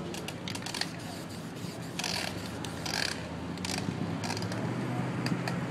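Spray-paint can hissing in two short bursts, about two and three seconds in, amid scattered clicks and rattles of cans being handled, over a steady low hum.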